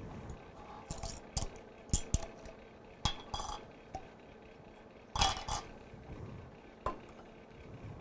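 Kitchen utensils clinking and tapping against a mixing bowl and measuring cup as wet ingredients are measured in. The strikes come scattered and irregular, and the loudest is about five seconds in.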